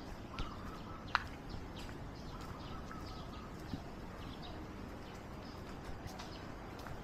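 Footsteps on a path, with faint bird calls: two short, level whistled notes and scattered chirps over an outdoor background, and a sharp click about a second in.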